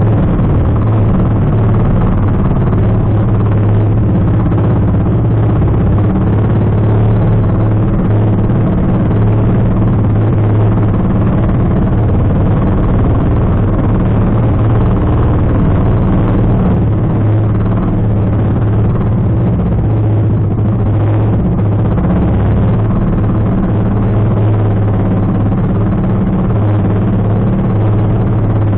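Outrigger fishing boat's engine running steadily under way, a constant low hum with the rush of the moving boat over it.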